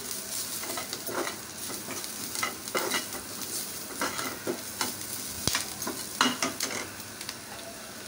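A steel ladle stirring and scraping chopped onion, garlic, green chillies and ground spices frying in oil in a steel kadai, over a steady sizzle. The scrapes and knocks of the ladle on the pan come irregularly throughout.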